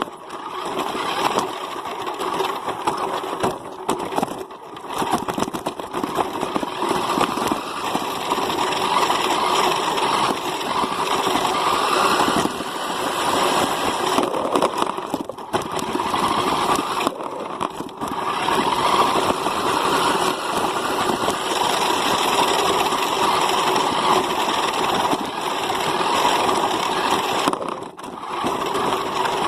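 A vehicle's engine running close to the microphone, its level rising and falling, with a few brief dips along the way.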